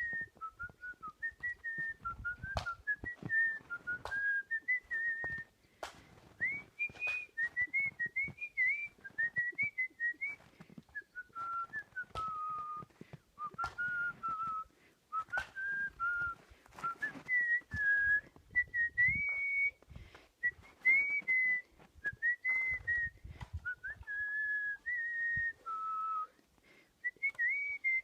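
A person whistling a tune with the lips, one clear melody line moving up and down in short notes and phrases. Sharp clicks or knocks are scattered under the whistling.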